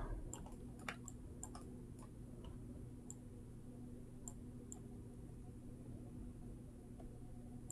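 Faint, irregular clicks of a computer mouse, a dozen or so scattered single ticks, over a faint steady hum of room noise.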